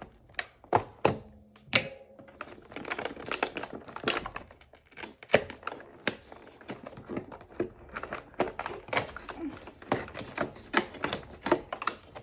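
Cardboard advent calendar door being prised open along its perforations and the toy's packaging handled: irregular sharp clicks, small tears and crinkles in quick succession.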